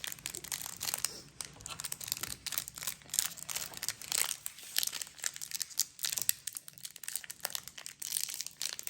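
A Pokémon trading card booster pack's foil wrapper crinkling with irregular crackles as it is handled and torn open by hand.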